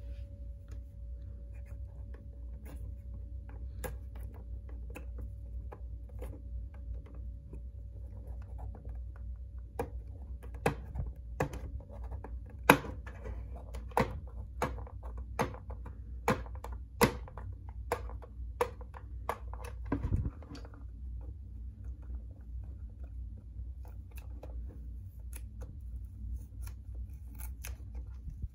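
Fingernail picking and scratching at a sticker on the back of a clock radio's case, trying to peel it off. About ten seconds in comes a run of sharp clicks about every 0.7 s, with a short rasp of peeling near twenty seconds, and faint scratching the rest of the time.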